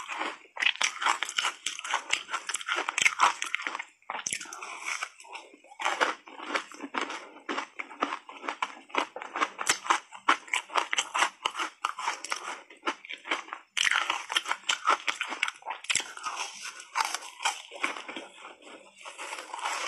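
Close-miked biting and chewing of reshaped ice coated in matcha powder: dense, irregular crunching and cracking as the ice is bitten into and ground between the teeth, with brief lulls between mouthfuls.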